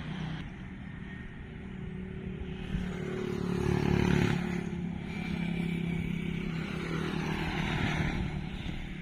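Excavator's diesel engine running, the revs rising to a peak about four seconds in, then easing back to a steady run.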